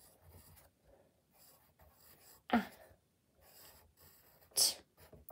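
Pencil writing on paper in an exercise book: faint scratching strokes. Two short, louder breathy sounds come about two and a half and four and a half seconds in.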